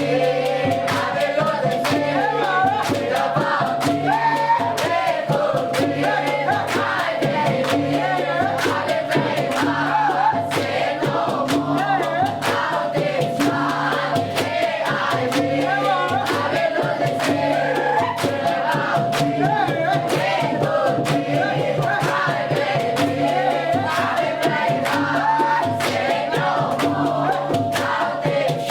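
A group of voices singing together in chorus over music with a steady beat and a repeating bass line.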